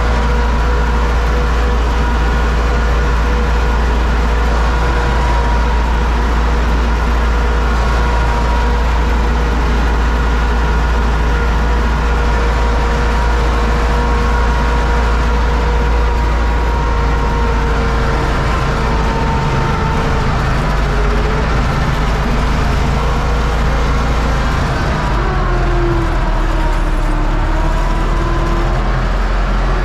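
Universal U650 tractor's four-cylinder diesel engine running steadily under load, heard from inside the cab, with the steady whine of the PTO-driven Zmaj Zemun 223 corn picker harvesting corn. Near the end the whine's pitch wavers and dips.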